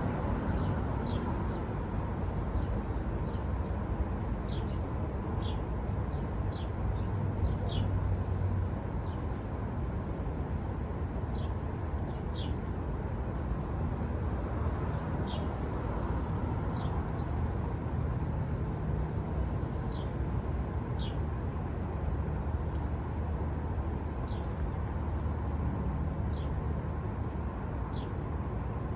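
Small birds chirping now and then, each a short sharp downward note, over a steady low rumble.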